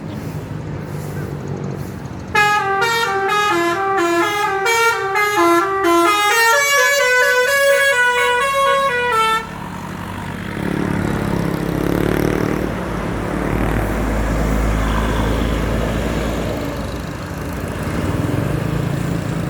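Bus telolet musical horn playing a quick melody of stepping notes for about seven seconds, starting a couple of seconds in and cutting off suddenly. After it, the bus engine runs with a low rumble and road noise.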